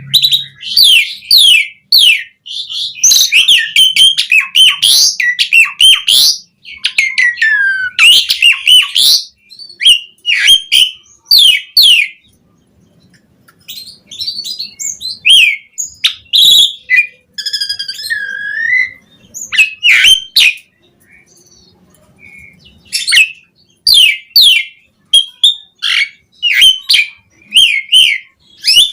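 Javan pied starling (jalak suren) singing loudly in fast runs of varied chattering, squawking and whistled phrases. The song thins out midway, with a drawn-out falling whistle, then picks up again.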